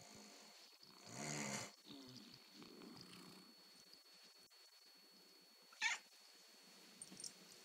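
A sleeping pet snoring: one louder snore about a second in, followed by softer breathing sounds. A short sharp noise comes about six seconds in.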